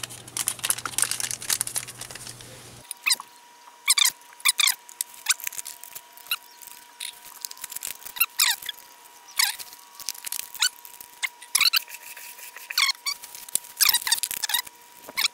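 Paper Jello powder packets being crinkled, torn and squeezed out by hand over a plastic tub, in short sharp crackles and squeaks. A faint steady tone sounds underneath from about three seconds in.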